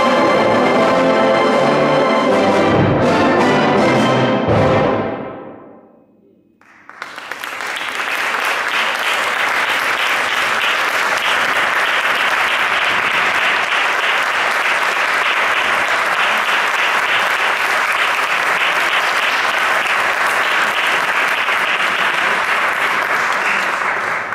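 A brass band holds a loud final chord with a few percussion strokes, then cuts off about five seconds in and the sound rings away through the hall. After a moment's pause, the audience applauds steadily.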